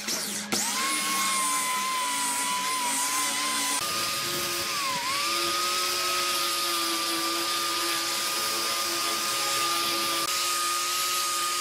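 Angle grinder with a sanding disc running at a steady high whine while sanding a wooden tabletop; its pitch sags briefly about five seconds in as the disc bears on the wood, then recovers.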